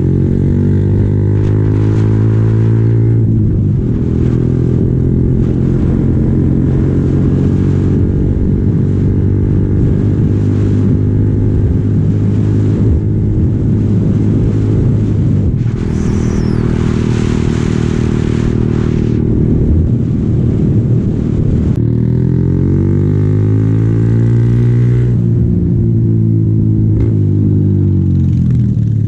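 Yamaha Sniper 135 (LC135) single-cylinder four-stroke motorcycle engine running under way, its pitch sweeping up and down with throttle and gear changes near the start and again about three-quarters through. A short rush of hissing noise comes about halfway through.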